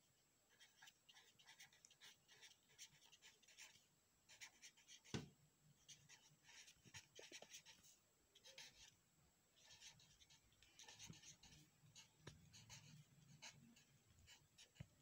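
Faint scratching of a pen writing on paper, in short strokes and bursts as letters are formed. There is one soft knock about five seconds in.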